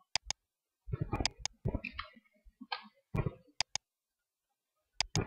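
Computer mouse and keyboard clicking: three quick double clicks, one near the start, one past the middle and one near the end, with softer key taps between them, among them the A key pressed three times.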